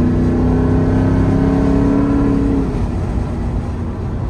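Ford F-150 Tremor's 5.0 Coyote V8 pulling under throttle with the exhaust cutouts open, heard inside the cab: a steady engine drone rising slightly in pitch, then easing off about two-thirds of the way through.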